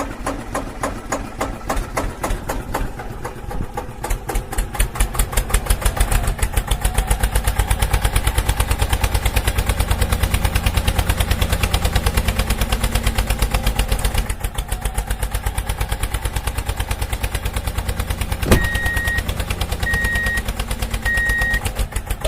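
Small engine chugging steadily in rapid, even pulses that speed up slightly about six seconds in. Near the end there is a sharp click, then three short high beeps.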